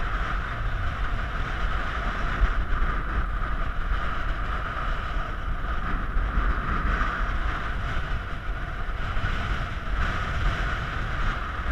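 Wind buffeting a camera microphone: a steady, gusting low rumble under a constant hiss.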